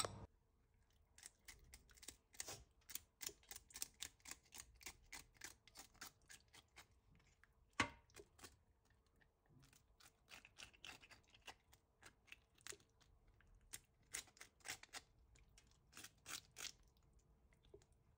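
Faint, quick scraping strokes of fish being scaled and cleaned by hand in a steel bowl of water, several a second, with one louder knock about eight seconds in.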